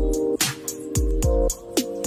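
Background music with a steady beat: sustained chords over deep kick drums that drop in pitch and sharp, crisp hits in a repeating pattern.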